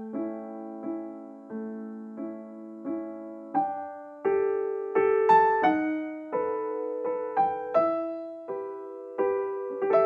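Background piano music: unhurried single notes and chords, each struck and left to ring and fade.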